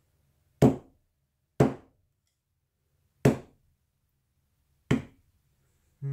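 Tack hammer striking wet acrylic paint on a hard painting panel: four sharp, separate taps at uneven intervals.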